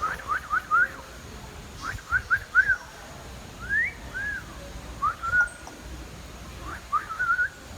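A run of short whistled notes, mostly quick upward slides with a few rise-and-fall ones, in bursts of two to four with pauses between.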